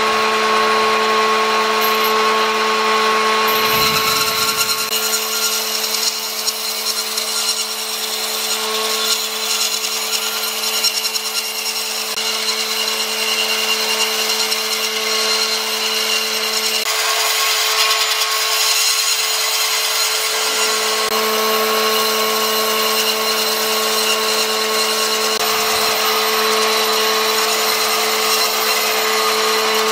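Vertical bandsaw running with a steady motor hum while its blade rips lengthwise through a log, a continuous hiss of cutting over the hum.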